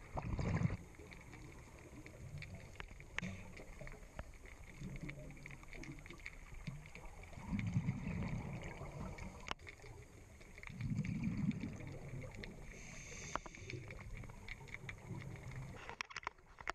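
Underwater sound of a scuba diver breathing through a regulator: a low bubbling rumble of exhaled air every few seconds, with scattered faint clicks and crackles in between.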